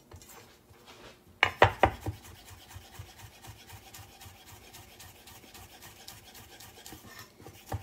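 Chef's knife slicing fresh sage leaves into a chiffonade on a wooden end-grain cutting board. A few harder knocks come about a second and a half in, then quick, even, light knife strokes follow, several a second.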